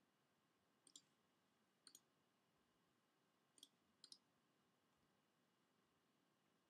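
Faint computer mouse button clicks, four of them and some in quick pairs, over near-silent room tone.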